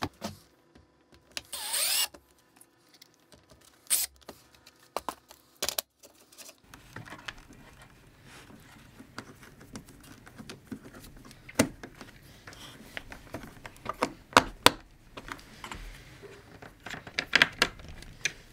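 Scattered clicks and taps of screws, screwdrivers and wires on a plastic terminal strip and motor contactor during wiring, with a short whir of a cordless drill-driver about two seconds in. A faint steady hum sits under the clicks in the second half.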